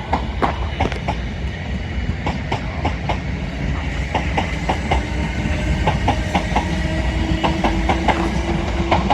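Class 455 electric multiple unit running through the station, its wheels clicking irregularly over rail joints and points above a steady rumble, with a low hum coming in near the end.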